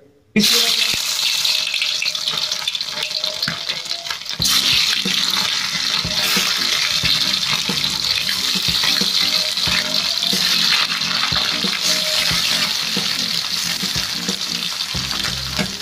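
Pindang fish (salted, pre-boiled fish) frying in hot oil in a wok: a loud sizzle that starts suddenly as the first pieces hit the oil, grows louder about four seconds in, and carries scattered pops and spits throughout.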